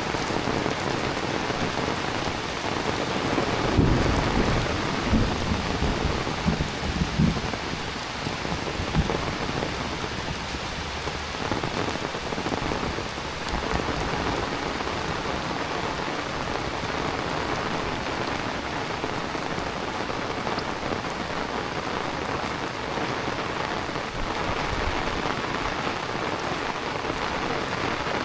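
Heavy rain falling steadily, with a low rumble of thunder rolling through from about four to nine seconds in.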